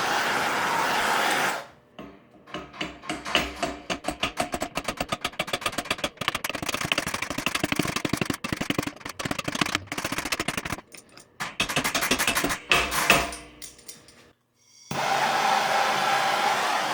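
A power tool whirring steadily, then a long run of quick ratcheting clicks at several a second as fasteners are worked loose, then the power tool whirring again near the end.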